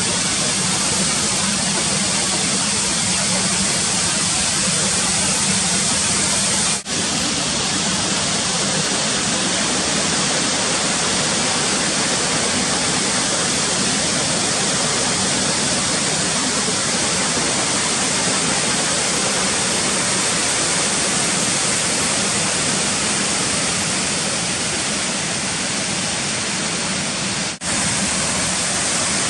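Muddy storm runoff pouring over a sandstone cliff edge as a flash-flood waterfall: a loud, steady rush of falling water, broken briefly twice, about seven seconds in and near the end.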